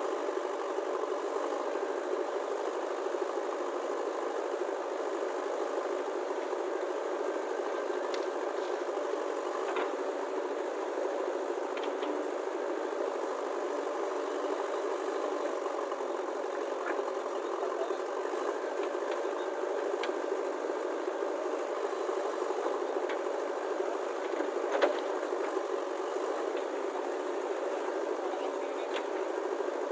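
A steady, engine-like mechanical running sound with a few scattered light clicks and one sharper click about three-quarters of the way through.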